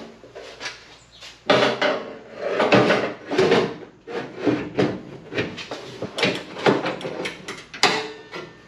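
A sheet-steel replacement nose panel for a 1965 Corvair knocking and scraping against the car's front body as it is hung and pushed into place, in a run of irregular clanks, some of them ringing briefly.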